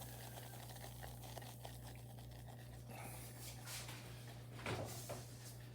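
Loose butter-and-flour roux bubbling faintly in a pan, a fine, even crackle of small bubbles as the flour cooks out, over a steady low hum.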